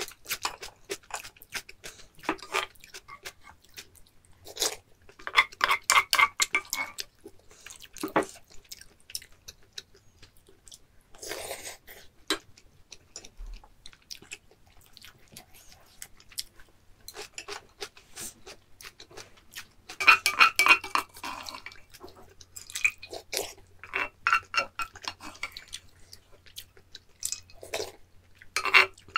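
Close-up eating sounds of a person eating instant ramen from a pot: bouts of chewing, with chopsticks and a spoon clicking against the pot, coming and going several times with short quieter gaps between.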